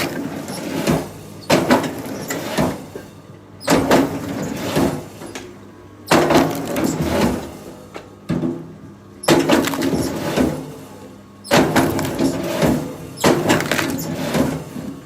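Heavy knocks and cracking of wood in sudden bursts, about every one to three seconds.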